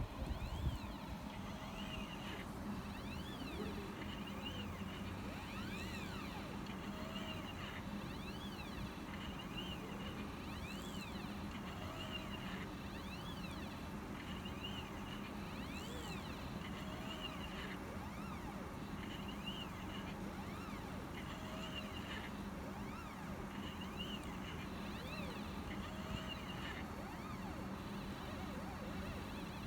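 Stepper motors of a CNC machine writing text: whines that rise and fall in pitch over and over as the axes speed up and slow down, with short steady whines in between, over a steady low hum.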